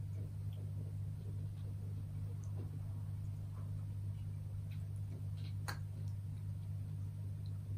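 A steady low hum, with a few soft, scattered clicks, the clearest one a little past halfway.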